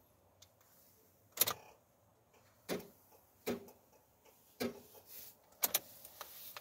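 A series of sharp clicks and knocks inside a truck cab, five in all, irregularly spaced about a second apart. The first is the loudest and the last is a quick double click.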